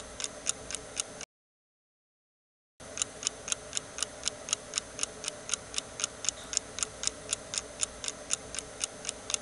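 Wall clock ticking fast and evenly, about four ticks a second. The ticking drops out to dead silence for about a second and a half after the first second, then resumes.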